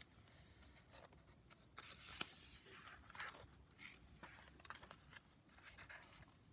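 Faint rustling and soft clicks of a paper picture-book page being turned by hand.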